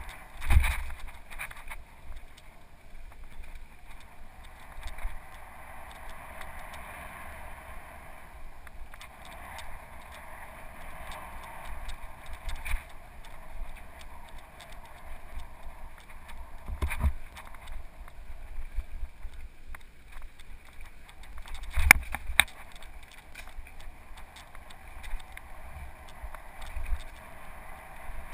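Mountain bike ridden fast over a dirt singletrack, heard from a helmet-mounted camera: a steady rush of wind and tyre noise with knocks and rattles as the bike hits bumps. The hardest jolts come about a second in, about halfway through, and about three quarters of the way through.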